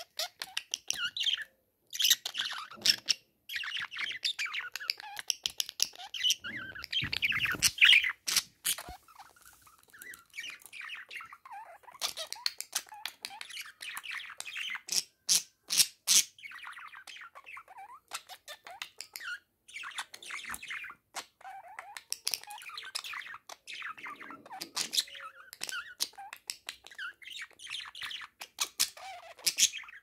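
Budgerigars chattering and warbling continuously to a mirror, with many sharp clicks of a beak tapping on the mirror glass, loudest about a quarter of the way in and near the middle.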